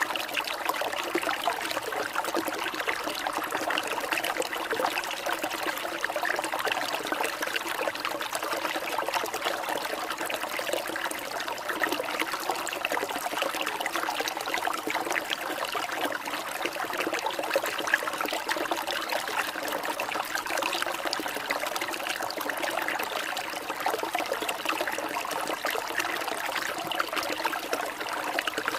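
Steady trickling, running water, like a small stream, with an even flow and no breaks.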